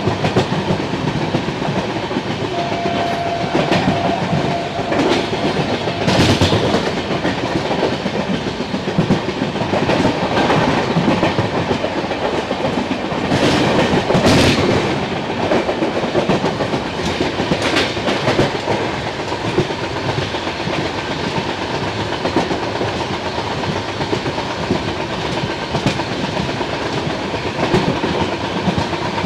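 Passenger train running at speed heard from beside an open coach door: a steady rush of wheels on rail with clickety-clack over rail joints and points, and a few louder passages where the coach crosses points.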